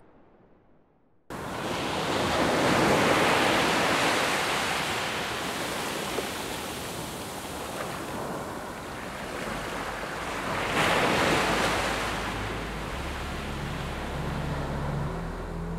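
Sea surf washing onto a beach, cutting in suddenly about a second in and swelling twice as waves break. Low held music notes come in near the end.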